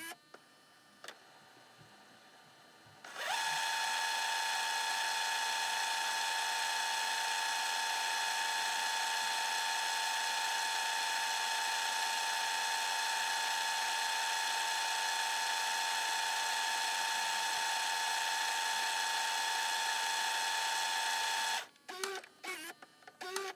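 Camcorder tape mechanism rewinding. A few light clicks, then about three seconds in the motor spins up quickly to a steady high whine and holds it for about eighteen seconds. It stops suddenly near the end, followed by a few mechanical clunks and clicks.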